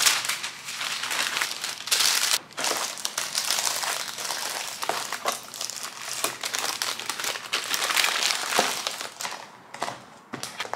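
Baking paper crinkling and rustling as it is folded around bagels, with light plastic clicks and taps as the wrapped bagels go into plastic food containers. Sharper separate clicks near the end, as a lid is pressed on.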